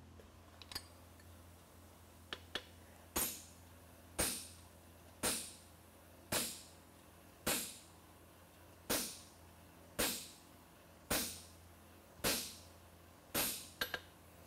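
Hammer blows on a handled fuller set in a red-hot steel horseshoe on the anvil: fullering the nail groove along the shoe's branch. After a few light taps the blows come steadily, about one a second, each a sharp metallic strike with a short ring.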